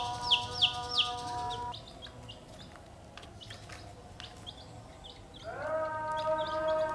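Domestic chicks peeping: loud, quick falling peeps about three a second at first, then fainter and sparser. A held chord of background music sounds under them at the start and swells back in near the end.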